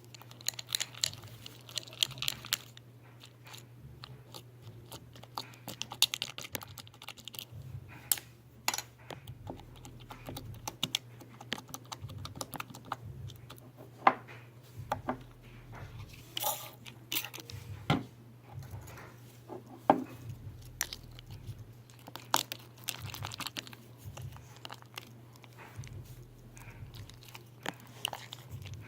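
Creamy, fluffy slime being worked, making irregular wet pops and clicks, with two louder pops in the middle.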